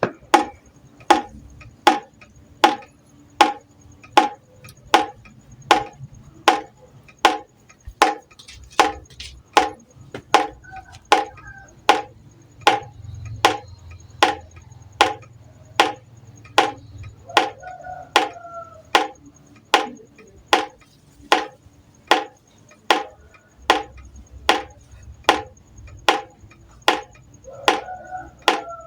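Water droplets falling one at a time into a pot: a sharp plink with a short ring, evenly spaced, about one every three-quarters of a second.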